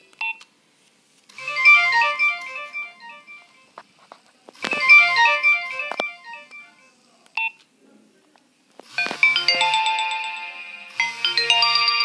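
Nokia 2600 phone playing previews of its built-in ringtones from its speaker as the list is scrolled: four short melodic snippets, each about two seconds long and cut off when the next one starts, with a short beep near the start and another in the middle.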